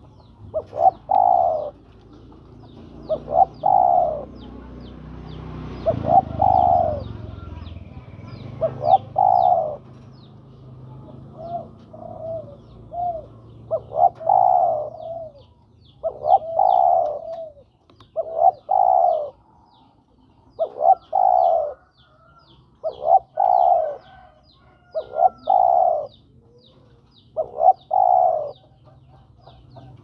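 Spotted dove (tekukur) cooing: a phrase of two short notes and a longer one, repeated about every two to two and a half seconds, the male's call to a female. A faint high chirping of a small bird repeats underneath.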